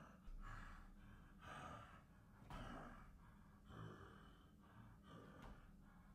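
A man breathing heavily in and out, faint, with about one breath every second.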